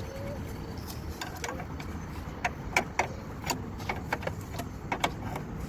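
Irregular sharp metallic clicks and knocks as a control-arm bolt is tugged and worked out past a shield, over a low steady rumble.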